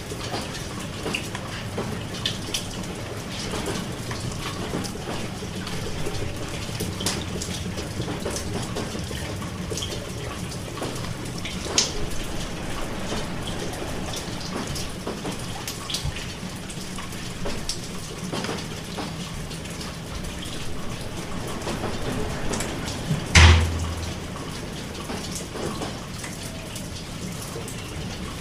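Rain falling, a steady patter with scattered sharper drips. Late on, a single loud thump stands out above the rain.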